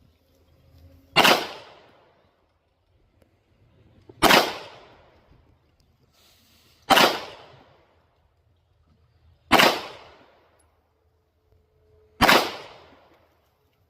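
Five 9mm pistol shots from a Canik TTI Combat, slow aimed fire about one every two and a half to three seconds, each a sharp crack with a short echoing tail.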